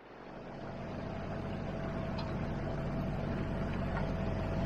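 Outboard motor of a MacGregor 26X sailboat running steadily at low speed, a low even hum fading in over the first second or so.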